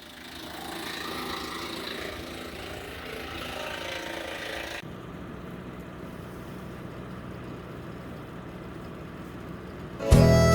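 Tractor-PTO-driven Woodland Mills WC88 wood chipper running steadily with the tractor engine. About five seconds in the sound changes abruptly, losing its higher hiss and turning duller. Harmonica music starts just before the end.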